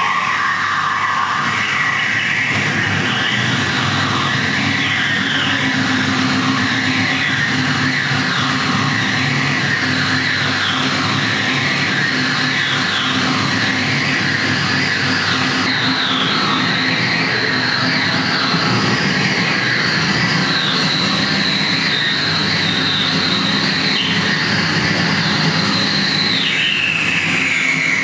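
Electronic sound art played through a pair of monitor speakers, fed from wall-mounted wire antennas and a mixer: a steady noisy drone with a low hum under it and high, wavering whining tones that slide about. The high tones jump up in pitch about halfway through and glide down near the end.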